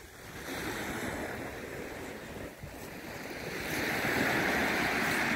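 Small waves breaking and washing up a shingle beach, growing louder in the last second or two.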